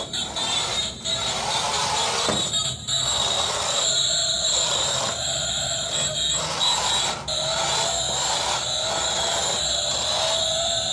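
Small DC gear motors of a homemade RC truck whining as it drives and turns, with short breaks as the motors stop and start.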